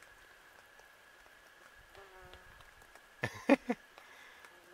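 Stinging insects buzzing faintly as they fly close by, one short buzz about two seconds in. Three sharp close taps come a little over three seconds in and are the loudest sounds.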